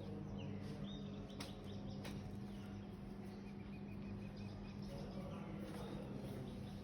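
Quiet room tone with a steady low hum, faint high bird-like chirps, and a couple of soft clicks in the first half.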